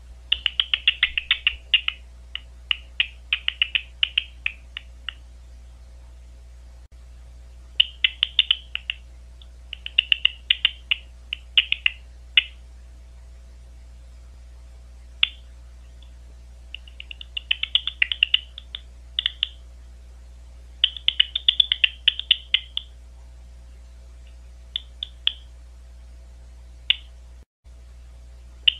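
Big brown bat echolocation calls made audible by a bat detector, heard as bursts of rapid clicks, each burst a second or two long with short pauses between, over a faint steady hum.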